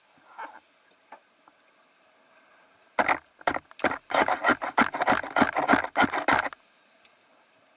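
A rapid run of loud clicks and knocks, about five a second, starting about three seconds in and stopping abruptly after about three and a half seconds, over faint scattered ticking.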